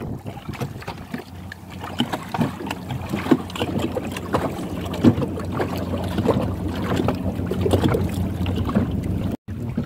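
Waves lapping and knocking against the hull of a small outrigger boat on choppy water, with wind on the microphone. A steady low hum runs underneath.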